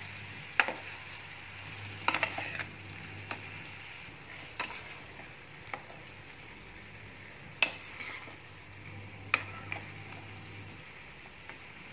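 Chopped vegetables sizzling in a metal frying pan as a spatula stirs them, the spatula scraping and knocking against the pan about ten times; the sharpest knock comes a little past halfway.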